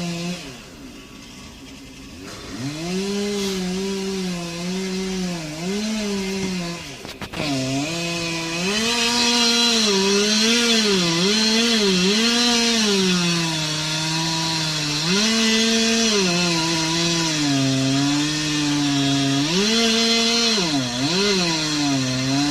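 Chainsaw running under load while cutting into a poplar trunk, its engine pitch rising and sagging as it works through the wood. It is quieter for about the first two seconds, dips briefly partway through, then runs louder and steadier for the rest.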